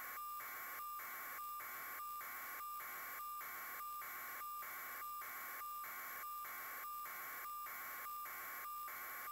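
Electronic static hiss with a steady high tone, cut by brief even dropouts about three times a second.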